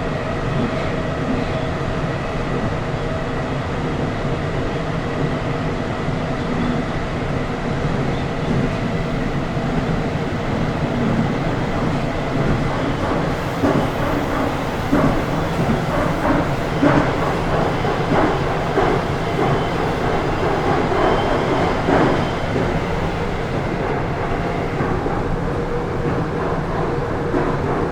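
Moscow Metro train running through the tunnel, heard from inside the carriage: a steady rumble and rail noise with a faint held tone. A run of sharper clacks over the rails comes through the middle.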